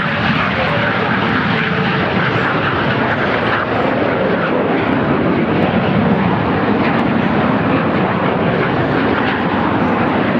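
Fixed-wing aircraft engines running loud and steady as a plane flies by.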